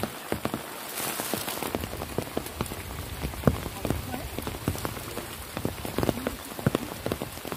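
Heavy rain falling on flooded rice paddies and vegetation: a steady hiss of rain with many sharp, close drop taps.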